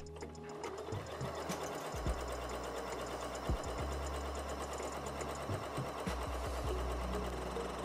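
Janome Memory Craft 6700P computerised sewing machine stitching a zigzag through cotton: a fast, even needle chatter over a steady motor hum, starting up shortly after the beginning.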